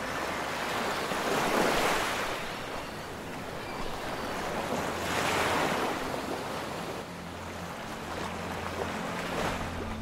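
Surf washing onto a sandy beach: three waves swell and break about four seconds apart, over a low steady hum.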